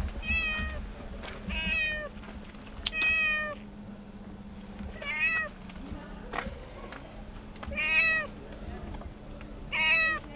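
A calico cat meowing repeatedly, six meows each about half a second long, a second or two apart.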